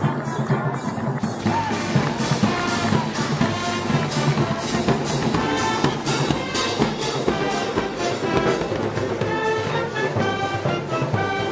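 A brass band with drums playing festival music, with a steady beat of about three strokes a second under the brass.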